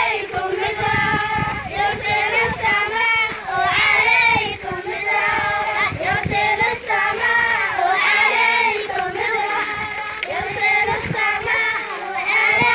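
A group of children chanting a prayer for rain together in a sung call, many young voices at once, going on without a break.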